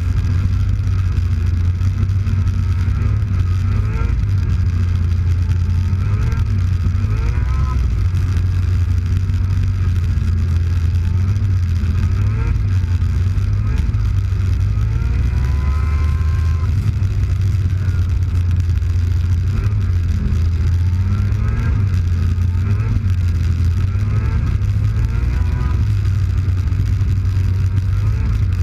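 Snowmobile engine running under way with a steady low rumble, its pitch rising and falling several times, most clearly about halfway through.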